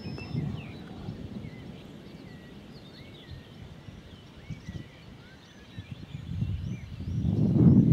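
Small birds chirping and twittering in short calls over a low, gusty rumble that swells to its loudest near the end.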